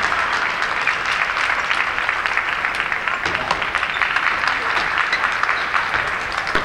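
Spectators applauding steadily, a dense mass of many people's claps.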